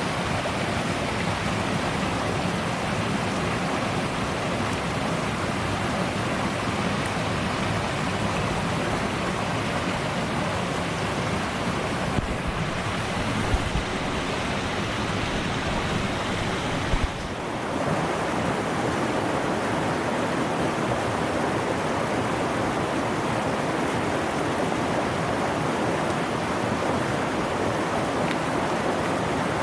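Rushing stream water, a steady full rush over rocks, with a few brief low thumps around the middle.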